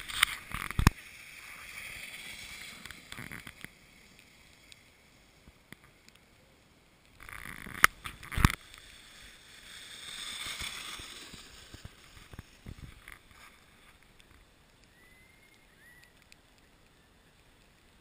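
Sleds sliding over icy, slushy pavement: a scraping hiss that swells and fades twice, with a few sharp knocks near the start and about eight seconds in.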